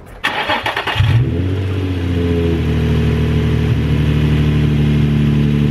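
Nissan 350Z's 3.5-litre V6 cranking on the starter for under a second, catching about a second in with a brief flare, then settling into a steady idle. It is running rough with a cylinder misfire.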